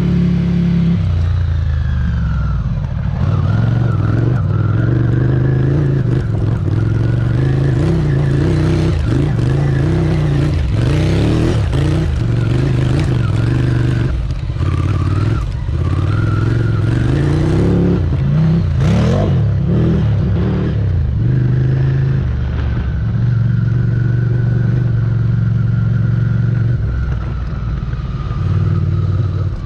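Ducati Scrambler's air-cooled L-twin engine heard from the rider's seat as the motorcycle is ridden. The engine note rises and falls with the throttle and steps between gears.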